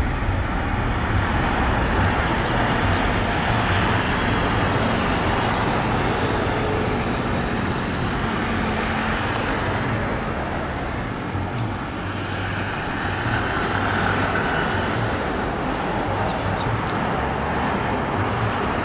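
Jet engines of a Citilink Airbus A320 at takeoff thrust as it rolls down the runway and climbs away: a steady, even noise that dips slightly about twelve seconds in.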